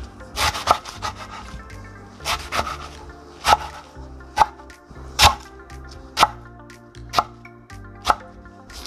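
Background instrumental music: held chords with a sharp hit about once a second.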